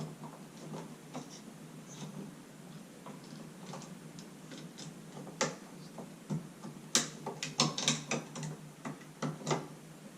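Irregular small clicks and scrapes of a thin flat piece of metal working at the terminals of an old wall light switch to free its wires. The clicks come more often in the last few seconds.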